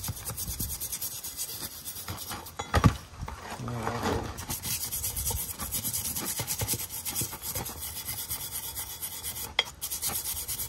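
A small hand wire brush scrubbing rusty steel caliper brackets in a tub of liquid, in quick, short, scratchy strokes, scouring off the corrosion. One sharp knock about three seconds in.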